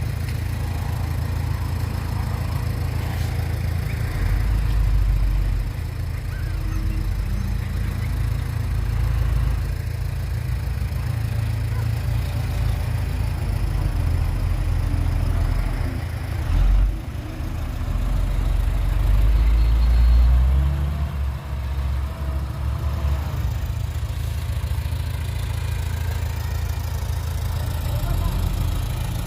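Heavy diesel engine of earth-moving machinery running steadily with a low-pitched sound. It swells louder about 4 seconds in and again around 19 to 21 seconds, as if working under load.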